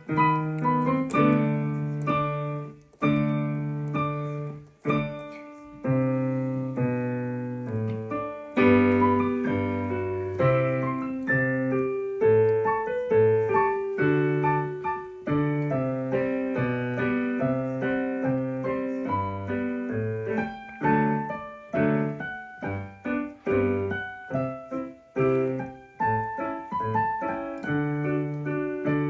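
Piano music: a melody over chords, with long held notes at first and quicker notes from about eight seconds in.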